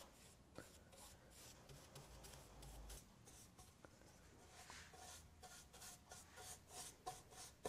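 Faint, repeated strokes of an ox-hair brush laying shellac onto a mahogany wood surface.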